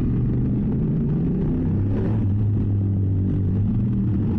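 BMW F800S's 798 cc parallel-twin engine running at a fairly steady pace through a GPR Furore exhaust with its dB-killer removed, picked up by a microphone inside the rider's helmet.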